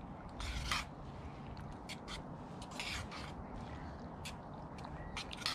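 Metal spoon stirring dehydrated ground beef, onions and peppers as they soak in hot water in a metal camp pot, with a few short, irregular scrapes of the spoon against the pot.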